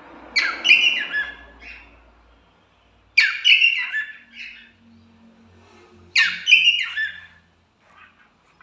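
Pet cockatiels calling in three loud bursts about three seconds apart, each a quick run of high calls that drop in pitch.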